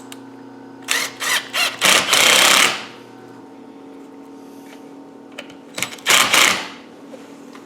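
Cordless driver with a 6 mm bit tightening a worm-drive hose clip on a coolant hose, run in short bursts: several quick ones about a second in, a longer run near two seconds, and two more around six seconds.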